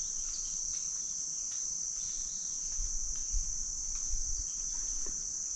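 Steady high-pitched chorus of insects singing in summer woods. A few faint low bumps come in the second half.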